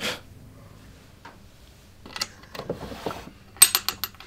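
A wooden nightstand drawer being pulled open and the things inside handled, giving a run of small knocks, rubs and sharp clicks from about halfway through.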